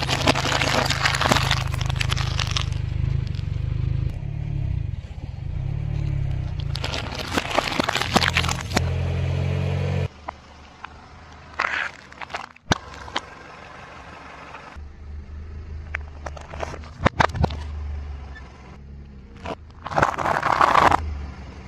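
Car tyre slowly rolling over and crushing brittle objects: liquid-filled glass light bulbs crack and shatter, and near the end dry spiral pasta crunches, in several separate bursts of cracking. The car's engine hums low and steady under it.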